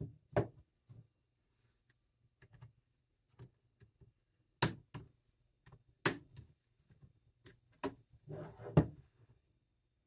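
Sharp plastic clicks and snaps as a plastic pry tool works along the seam of a Lenovo ThinkPad T14 Gen 4's bottom cover, releasing its clips. About half a dozen clicks come in the second half, with scraping and handling noise between them near the end.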